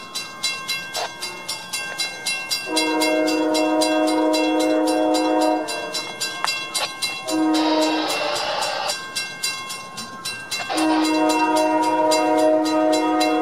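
An approaching CSX freight locomotive's air horn sounding a long blast, a short blast, then another long blast, the grade-crossing warning pattern, over the rapid, steady clanging of the crossing-signal bell. A brief rushing hiss comes about eight seconds in.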